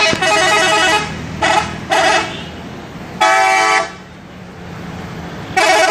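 A truck's telolet horn, a multi-note musical air horn, sounding in five blasts: a first of about a second with changing notes, two short toots, a longer steady blast past the middle, and another near the end.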